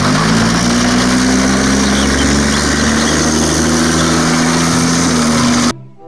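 Tracked self-propelled howitzer driving, its engine running loud and steady with a slightly wavering pitch over a broad mechanical rumble. The sound cuts off suddenly near the end.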